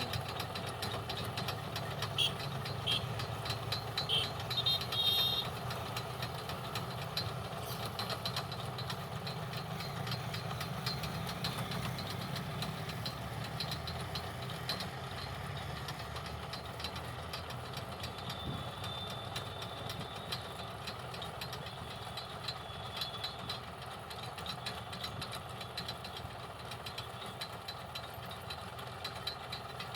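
Potato harvester and its tractor at work: a steady engine hum under a dense, continuous mechanical rattle, with a few sharper clanks about two to five seconds in.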